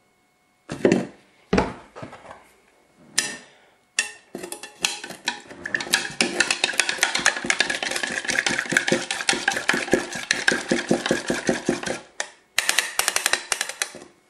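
Soap being stirred into vinegar in a graduated measuring container: a couple of knocks, then a long run of rapid clicking and clattering strokes of a utensil against the container, with a short pause before the last strokes.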